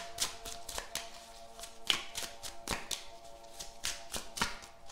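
A deck of cards being shuffled, with irregular crisp flicks and taps, over quiet background music with held tones.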